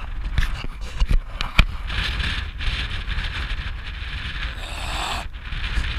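Wind buffeting the microphone of a handheld camera as a steady low rumble, with a hissing rush in the middle seconds and a couple of sharp knocks from handling the camera about a second in.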